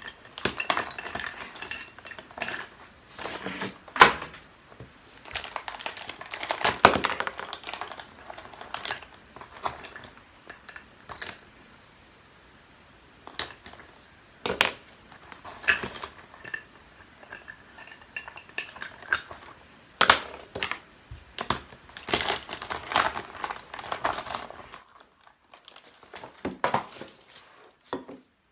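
Pens, markers, scissors and other stationery clattering and knocking as they are rummaged out of a pencil case and set down on a desk, with rustling between the irregular clicks. It thins to a few faint ticks near the end.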